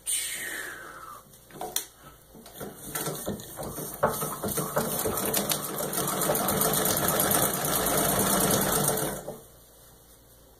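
Singer 66-1 treadle sewing machine stitching through six layers of denim. It picks up speed into a fast, even clatter of stitches, then stops about nine seconds in. A short falling squeal comes right at the start.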